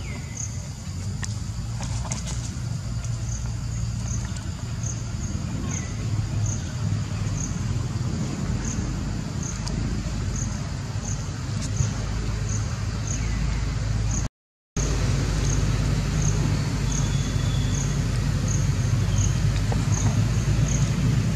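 Outdoor ambience: a steady low rumble with an insect chirping high in an even pulse, about two chirps a second. The sound cuts out for a moment about two-thirds of the way through.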